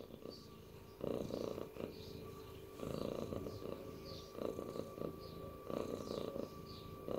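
Domestic cat purring, the rough low purr swelling in waves about every second and a half.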